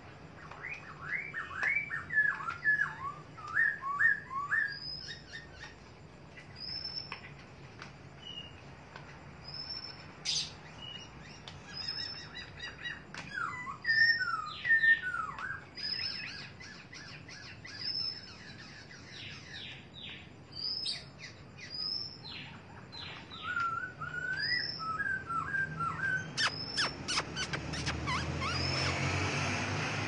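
Caged songbird singing short, quick warbled phrases in several spells, with thin high chirps in between. Near the end a rush of noise with a few clicks builds up under the song.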